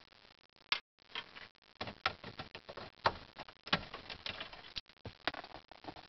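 Irregular small clicks and taps of a Torx screwdriver working the T20 screws out from under the plastic steering column cover.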